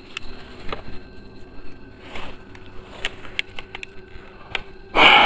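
Scattered footsteps and small handling clicks on a concrete stairway, over a faint steady hum. Near the end, a sudden loud hiss of noise.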